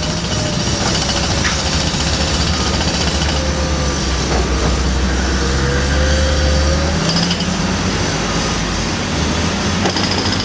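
Heavy diesel engines of a Cat 730 articulated dump truck and a Cat 319C excavator running as the loaded truck drives off, its low engine note shifting about seven seconds in. A faint whine wavers in pitch over the engine noise, with a few light knocks.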